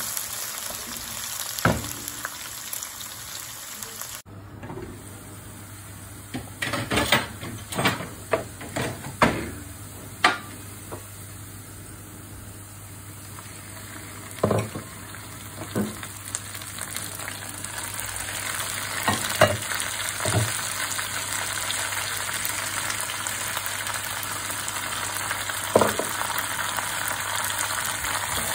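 Sliced onions frying in hot oil in a non-stick karahi, a steady sizzle as they cook down to golden brown. A wooden spoon knocks against the pan now and then as they are stirred, several times in quick succession between about six and ten seconds in.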